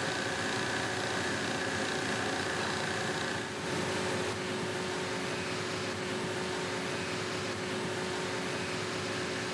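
Hydraulic press running with a steady mechanical hum while it crushes an aluminum scuba cylinder in a crush test. A higher tone drops out about three and a half seconds in.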